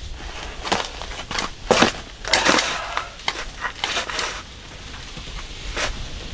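Irregular crunching and crackling: a string of sharp cracks and short scraping, crushing bursts, the longest and loudest about two and a half seconds in.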